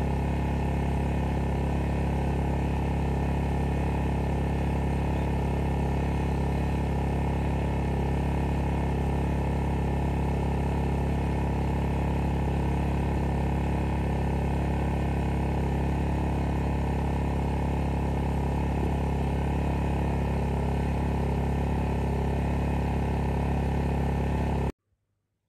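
EENOUR DK3000iSDF multi-fuel inverter generator running at a steady speed with an even, low engine drone. It cuts off suddenly near the end.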